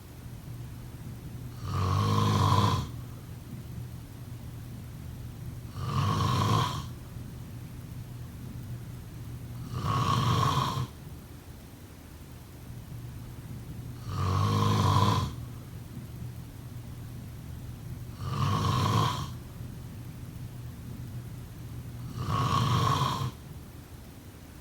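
Person snoring: six loud snores at an even pace, about four seconds apart, each lasting about a second.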